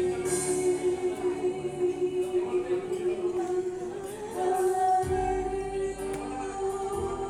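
Music with choral singing: voices hold one long chord, then move to another held chord about four seconds in.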